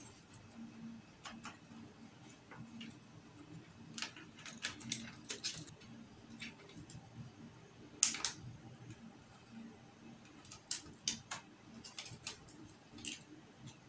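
Scattered light clicks and taps of hands working on a flat-screen TV's internals: wire connectors pushed into the boards and the plastic back cover and screws being fitted. The loudest click comes about eight seconds in.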